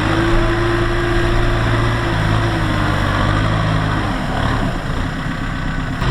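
A diesel engine on farm machinery runs steadily. Its note dips and wavers about four seconds in, then settles again.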